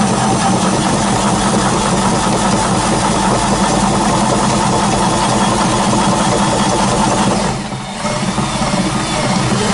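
Cordless drill spinning a threaded rod that turns the wooden gears of a homemade table-saw tilt mechanism. The gear mesh is loud and noisy because the teeth bump where they are not yet trued. The drill stops briefly just before the end, then starts again.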